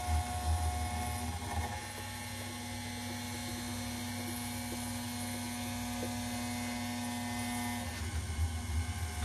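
Spindle of a 6040 CNC router milling a grade 5 titanium (Ti-6Al-4V) plate with an end mill under coolant spray: a steady machine hum, with a deeper rumble at the start and again near the end.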